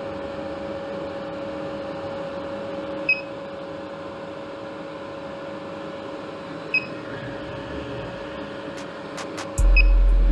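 Steady hum of the CO2 laser's running equipment with one steady tone in it, and the laser's control keypad beeping three times, a few seconds apart, as buttons are pressed. Near the end a few clicks, then a loud low rumble starts.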